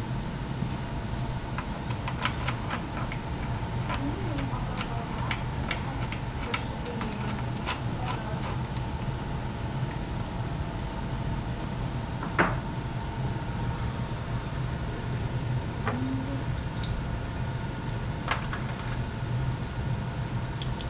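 Irregular light metallic clicks and clinks of hand tools and small bike parts being handled, with one sharper knock about twelve seconds in, over a steady background hum.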